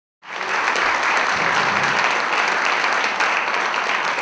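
Audience applauding, a steady spread of clapping that cuts in a moment after the start.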